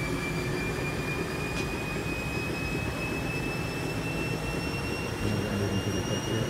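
Nautilus T916 treadmill running unloaded with its motor hood off: the drive motor, front roller and belt run with a low rumble and a thin whine that slowly rises in pitch as the speed climbs toward 12 mph. This is the typical sound of the machine working normally.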